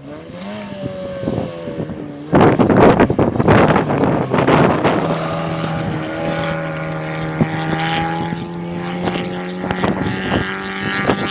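Fiat 147 rally car's engine revving hard on a gravel stage: the note rises and drops in the first two seconds, then there is a loud rough burst of gravel spray and wind noise as the car slides past. After that comes a steady, slowly climbing engine note as it pulls away at high revs.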